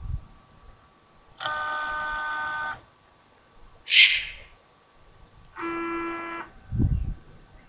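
A horn sounds twice, a long steady blast and then a shorter one. Between them, about four seconds in, comes one short, loud, raspy hiss, typical of a young eagle owl's begging call. A dull low thud follows near the end.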